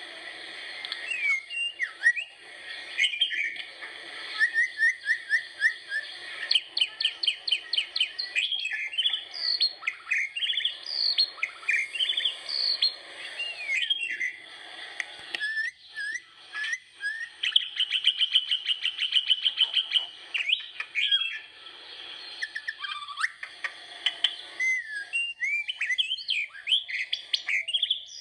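Several birds chirping and calling in quick, overlapping high notes, with short whistled glides and a couple of fast trilled runs.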